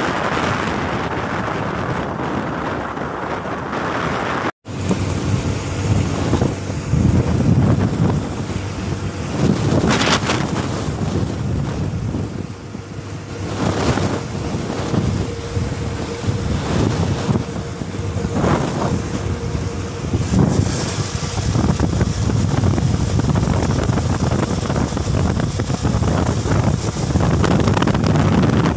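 Wind buffeting a phone microphone on a moving motorcycle, an uneven low rumble of rushing air with road noise beneath. It is steadier for the first few seconds, then, after a brief break about four and a half seconds in, it gusts harder and more unevenly.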